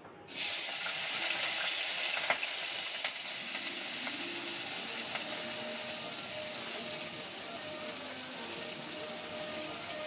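Soaked, washed rice dropped into hot desi ghee in a kadhai: a sudden loud sizzle starts a moment in and slowly dies down.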